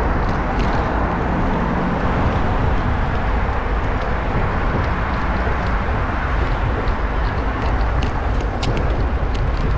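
Steady rush of wind and road noise on a bicycle-mounted GoPro Hero8 riding a Brompton through city traffic, heaviest in the low end. Scattered light clicks and ticks run through it, several close together near the end.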